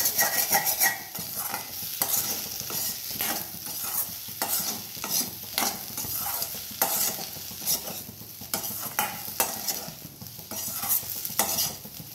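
Steel spoon stirring and scraping diced potatoes around a stainless steel kadai, with irregular metal-on-metal scrapes over the sizzle of the potatoes frying in oil.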